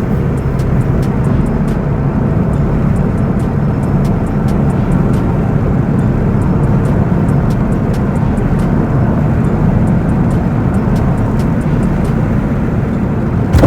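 Steady low road and engine rumble from a 2012 Dodge Charger V6 being driven, with faint scattered clicks.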